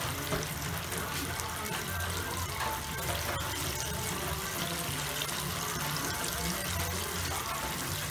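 Chicken deep-frying in a small aluminium pot of hot oil: a steady sizzle with constant fine crackling from the bubbling oil.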